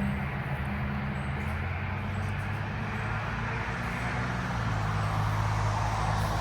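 A motor vehicle engine running with a steady low hum, its pitch shifting slightly about four seconds in, over a steady rushing hiss.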